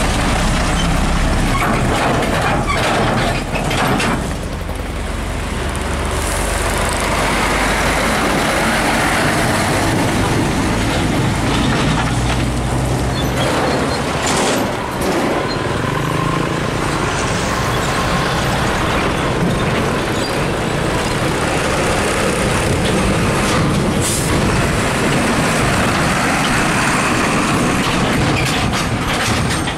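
Heavy diesel trucks passing close by on a busy road, container tractor-trailers and a tow truck among them: engines running and tyres rolling, loud and steady.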